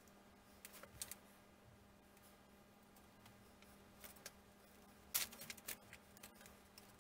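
Light clicks and taps of thin laser-cut wooden kit parts being handled and slotted together on a workbench, in small scattered groups with the loudest cluster about five seconds in, over a faint steady hum.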